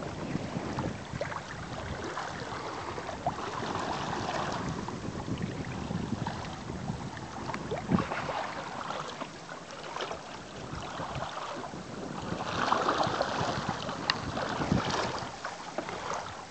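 Water rushing and splashing along a sailing kayak's hull as it moves through choppy water, with wind noise on the microphone. The wash swells about four seconds in and again near the end, with a few sharp slaps.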